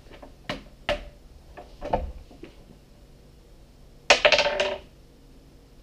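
Plastic board-game pieces handled on a wooden tabletop: a few light knocks, then a brief louder clatter about four seconds in.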